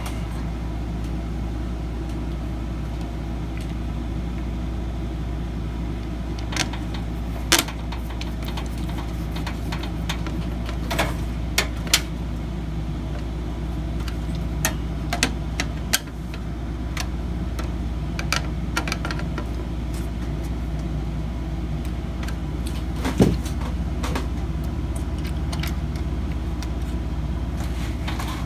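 A steady low hum throughout, with a scattered series of small clicks and taps as plastic and metal computer parts, a CPU fan and heat sink, are handled and fitted.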